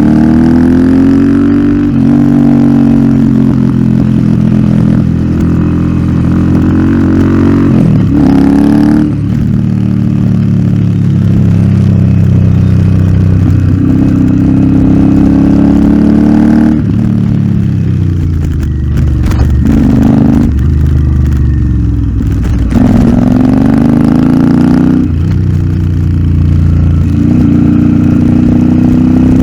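Royal Enfield Interceptor 650 parallel-twin engine through an aftermarket Nuke exhaust, ridden hard. The engine note repeatedly rises under acceleration and drops off as the rider shifts and rolls off for corners, with several sharp falls in pitch.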